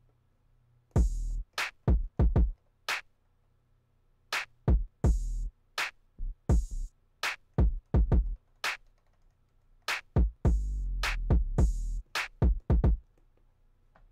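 A looped electronic beat of short percussive synth hits, some with a deep bass thump and some with a hissy top, played back from a sample recorded off a Moog Grandmother synthesizer. It starts about a second in and plays with uneven gaps between the hits.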